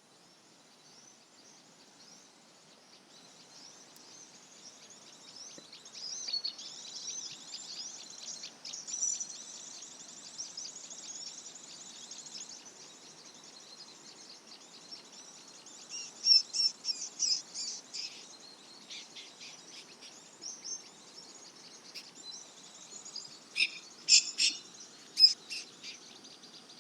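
Flowerpecker (cabe-cabean) calls: many high, thin, rapid chirps. They build up after the first few seconds, with louder clusters of chirps a little past the middle and again near the end.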